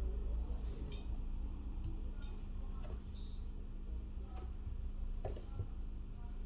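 A few light clicks and taps of small phone parts and tools being handled, over a steady low hum. A short high chirp sounds once about three seconds in.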